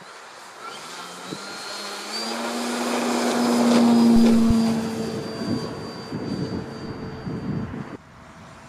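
Electric RC model plane's brushless motor (Joker 6350, 430KV) driving a 16x12 propeller at takeoff power: a steady buzzing drone with a high whine. It grows louder as the plane rolls toward the microphone, is loudest about four seconds in as it passes, then fades, and drops away abruptly near the end.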